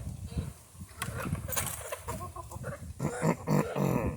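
Backyard chickens calling, with a few short calls in the second half.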